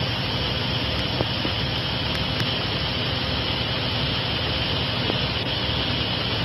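Stopped diesel freight locomotive idling, a steady low engine rumble with a steady hiss above it and a couple of faint ticks.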